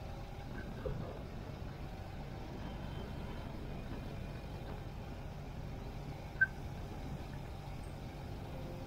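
Ural sidecar motorcycle's boxer-twin engine running at road speed, with steady wind and tyre noise. A single brief sharp click about six and a half seconds in.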